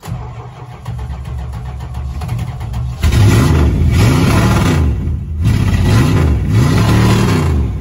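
The 440 big-block V8 of a 1977 Dodge D300 pickup, still cold just after a cold start, heard from inside the cab. It runs unevenly at first, then about three seconds in it gets louder and the revs rise and fall back twice.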